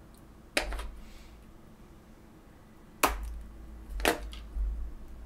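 Three sharp taps and clicks of small craft pieces and tools being handled and set down on a work table, the first about half a second in, then two more a second apart near the end, with dull handling bumps beneath.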